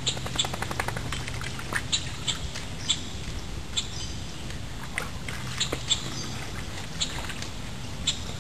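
Birds calling around a pond: short, sharp calls and high chirps scattered irregularly over a steady low hum.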